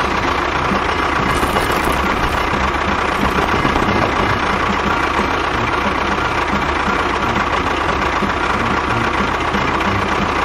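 A small motor running steadily with a constant high whine.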